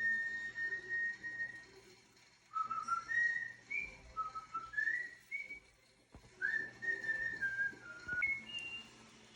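A whistled tune of clear held notes that step up and down in pitch, in three short phrases with brief pauses between them.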